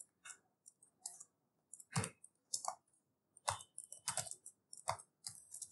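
Computer keyboard typing: irregular key clicks, with a few heavier keystrokes among them.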